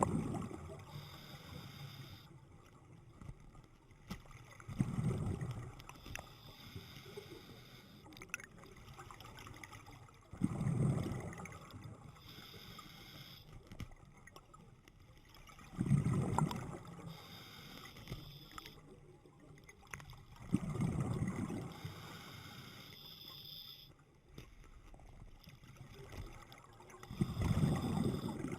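Sea water washing in waves, a surge about every five to six seconds over a quieter steady wash.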